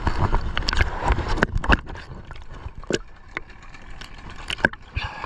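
Sea water slapping and gurgling around a camera held at the surface, with irregular splashes and a low rumble that is strongest in the first couple of seconds.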